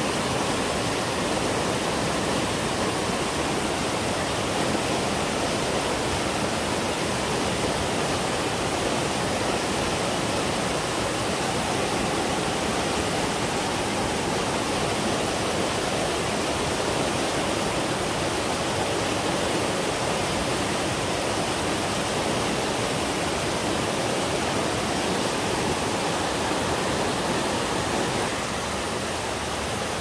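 Mountain stream rushing over boulders below a cascading waterfall: a steady, even rush of water that drops a little in level near the end.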